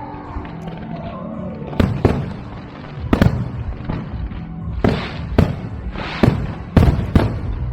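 Aerial fireworks shells bursting: about eight sharp bangs, irregularly spaced, starting about two seconds in, each trailing off in a brief rumble. Music plays underneath.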